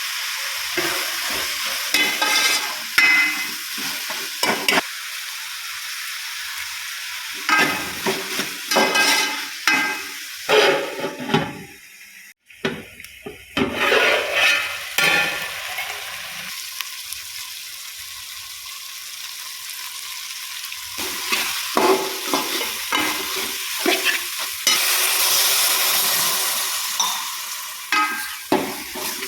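Food sizzling in a hot pan while a spatula stirs and scrapes it in repeated bouts, with a short break about twelve seconds in and the sizzle swelling near the end.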